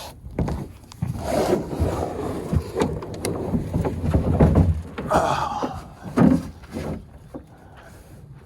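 Gear being handled and packed: irregular knocks, bumps and rustling, dying down near the end.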